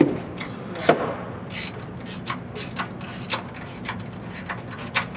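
Hand ratchet clicking slowly, about two clicks a second, on the bolts of a Ford Raptor's front JRZ coilover shock mount, with one sharper metal knock about a second in.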